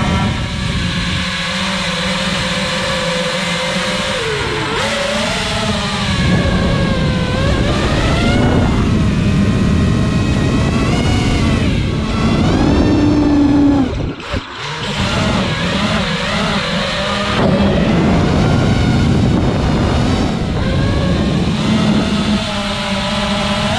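Eachine Wizard X220s racing quadcopter's brushless motors and propellers whining in flight, the pitch rising and falling with the throttle. About fourteen seconds in the throttle is briefly cut and the whine drops away before climbing back.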